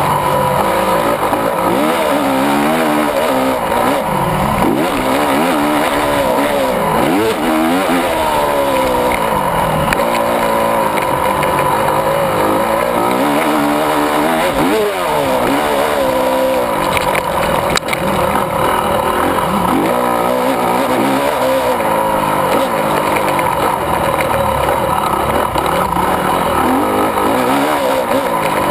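Honda 250 four-stroke motocross bike's single-cylinder engine ridden hard, its pitch rising and falling again and again through throttle and gear changes, heard close up from a camera mounted on the bike. A single sharp knock about two thirds of the way through.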